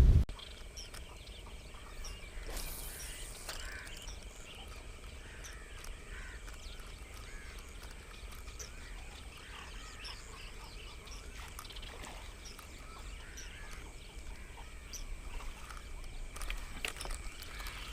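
Outdoor wetland ambience: many small chirping animal calls, with a steady high-pitched whine underneath and a low wind rumble; a brief rustle about two and a half seconds in.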